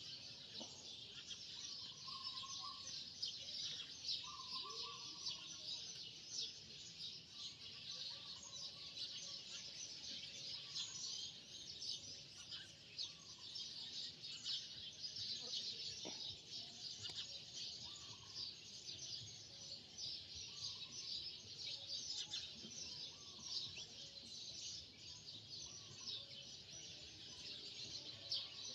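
Birds calling outdoors: a short call repeats every second or two over a continuous high-pitched chorus of chirps.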